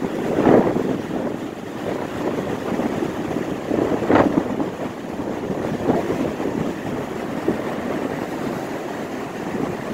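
The James River in flood near its crest, its fast water rushing in a steady noise with two louder surges, about half a second and four seconds in.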